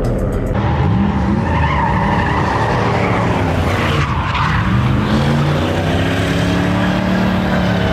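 Vehicle engine revving up and down repeatedly while its tyres squeal and skid, as in a burnout or donuts, laying down tyre smoke.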